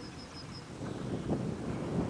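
Wind buffeting the microphone, a low irregular rumble that grows stronger about halfway through. At the start a small bird gives a quick run of high repeated notes.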